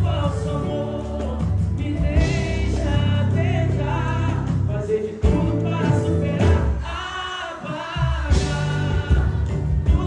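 A song playing: sung vocals over a band accompaniment.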